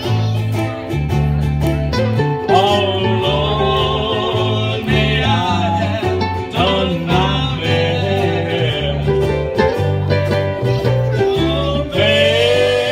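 A small ukulele band playing a song live: ukuleles strumming over a bass line that steps from note to note, with a man singing the melody into a microphone.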